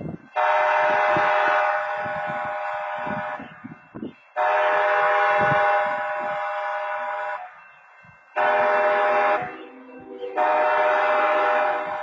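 Locomotive air horn sounding the grade-crossing signal: two long blasts, a short one, then a long one, each a chord of several notes.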